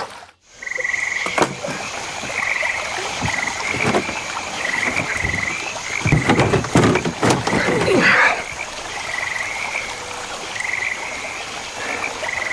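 Frogs croaking at night: short trilled calls repeating every second or so over a steady high tone. A cluster of louder knocks and rustles comes about six to eight seconds in.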